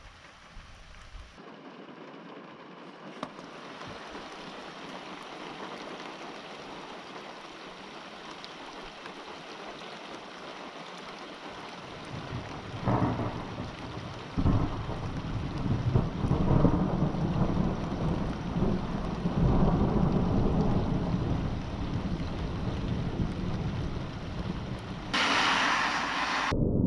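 Steady hiss of rain, with low rumbles of thunder coming in about halfway and growing louder.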